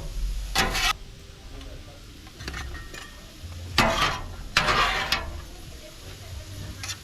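Shrimp and chicken sizzling on a steel flat-top griddle, with metal spatulas scraping across the griddle in a few short strokes: one about half a second in, then a pair around four to five seconds in.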